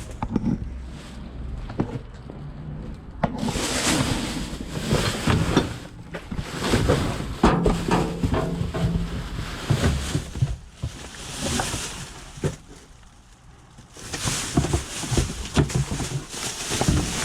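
Rummaging through a box of discarded items: irregular rustling and handling noise with scattered knocks and clicks, easing off to a quieter lull a little past the middle before picking up again.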